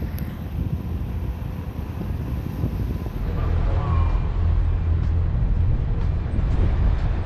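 Steady low rumble of vehicle traffic outdoors, with no speech, growing louder after a cut about three and a half seconds in.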